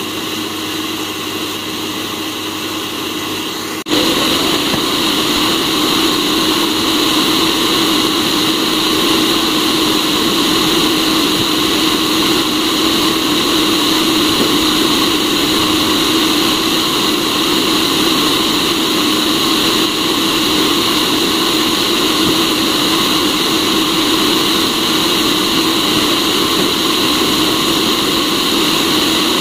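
Cafemasy hot-air coffee roaster running: its fan blows a steady rush of hot air that churns the beans in the glass chamber during the early drying stage of the roast. The rush gets abruptly louder about four seconds in and then holds steady.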